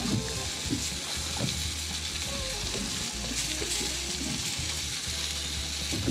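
Sliced onions sizzling on the hot stainless-steel grill plate of a marine gas barbecue as they are pushed around with a fork. The burner is off, and the plate's stored heat is finishing the cooking.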